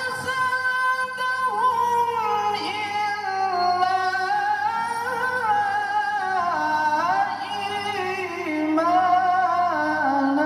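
A qari's melodic Quran recitation: one long ornamented phrase of held, wavering notes that glide slowly downward in pitch.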